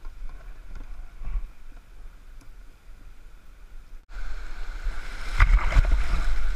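Water lapping against kayaks at the river's edge with a few light knocks, then after an abrupt cut about four seconds in, whitewater rapids rushing and splashing close by, much louder, as a kayak runs through them.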